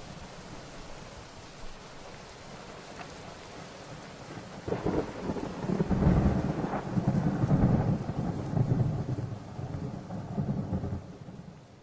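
Thunder rolling over steady rain: a low rumble swells about five seconds in, then dies away near the end.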